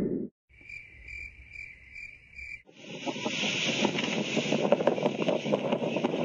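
Five short, evenly spaced high chirps from an animal, about two a second, over a faint low rumble. About two and a half seconds in they give way to steady outdoor noise of wind and chirring insects.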